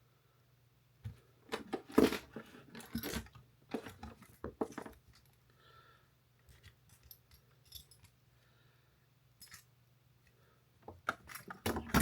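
Clinking and clattering of small hard objects being handled, in two bunches of quick knocks and clicks with a few scattered ticks between them.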